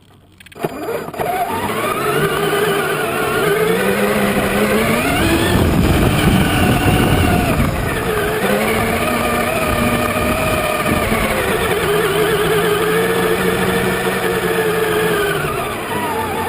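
Traxxas Summit RC truck's electric motor and drivetrain whining, its pitch rising and falling as the throttle is worked. It starts about half a second in, and there is a rougher rumble in the middle.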